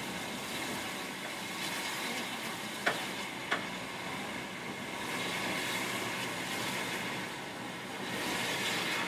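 Steam locomotive, an LMS Jubilee, making a steady hiss while it stands or turns on a turntable, with two short sharp knocks about three and three and a half seconds in.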